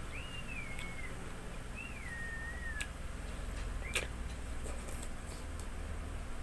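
Two high, thin calls from an animal, each about a second long, sliding up and then down, in the first three seconds. A few sharp mouth clicks of someone eating by hand, the loudest about four seconds in.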